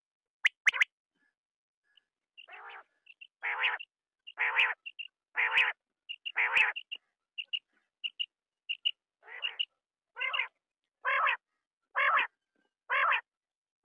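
Quail calling: a few short, sharp notes, then a steady run of harsh, rasping calls about one a second, with short clear peeping notes between them in the first half.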